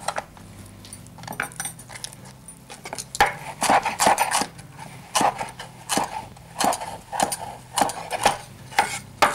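Kitchen knife chopping vegetables on a wooden cutting board. The blade strikes the board in an uneven run of knocks, about two a second, which becomes steady about three seconds in.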